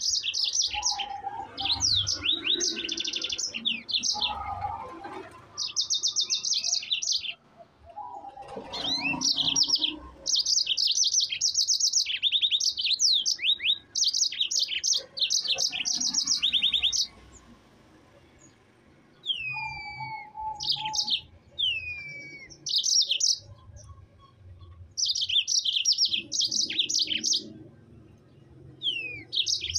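Yellow-fronted canary (Mozambique canary) singing a long, rolling song of very rapid high trills mixed with downward-sliding whistles, in phrases broken by short gaps and a lull of about two seconds just past halfway.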